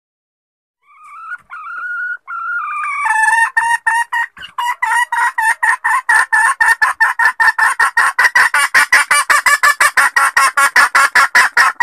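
Female red junglefowl hen calling, used as a trapper's lure call. A drawn-out call starts about a second in, then turns into a long, rapid run of clucks, about five a second, which stops abruptly near the end.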